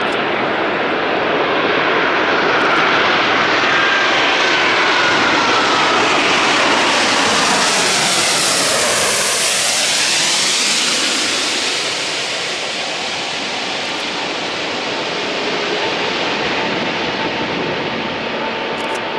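Airbus A380's four Rolls-Royce Trent 900 turbofan engines at approach power on landing: a loud jet rumble and whine that swells as the plane passes at about nine seconds, its tones gliding down in pitch, then easing off.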